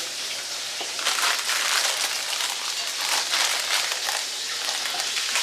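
Steady crackling of chicken frying in hot oil, with crinkling and rustling as the cornbread mix packet is opened and poured.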